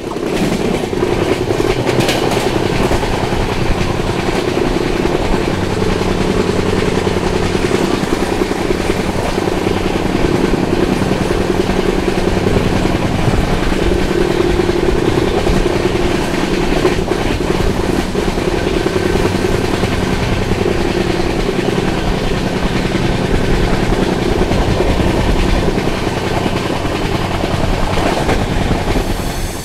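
A passenger train running along the track, with a steady, loud wheel-and-rail noise.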